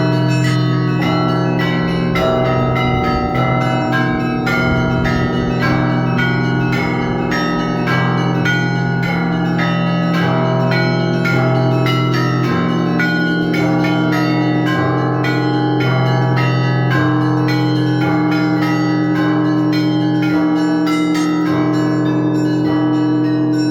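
Russian Orthodox bell ringing (zvon) on a monastery belfry: one ringer plays many bells together, with smaller bells struck in a quick rhythm over the long-ringing hum of the large low bells.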